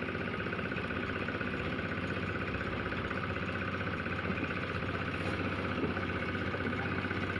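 An engine running steadily at a constant speed, with a fine, even pulsing to its hum.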